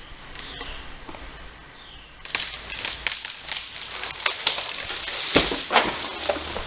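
A small dead tree falling: about two seconds in, a dense crackle of snapping twigs and branches sets in and builds to a loud crash near the end. Before it, faint bird chirps.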